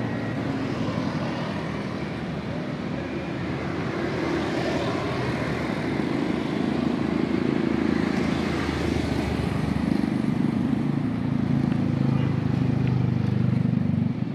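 Busy city street traffic: a steady mix of vehicle engines and tyre noise, growing louder in the second half.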